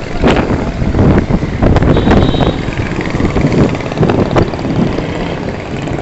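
Street ambience of passing motor traffic with wind rumbling on the microphone, broken by several short knocks.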